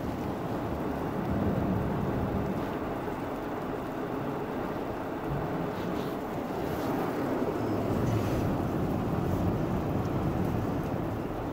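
Automatic car wash spraying water over the car, heard from inside the cabin: a steady, dense rushing rumble.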